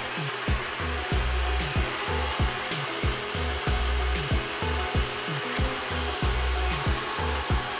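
Countertop blender running steadily as it blends juice, a continuous motor whir, under background music with a steady low beat.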